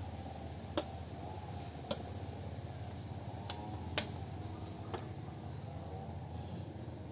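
Several light, sharp clicks a second or so apart over a steady low hum.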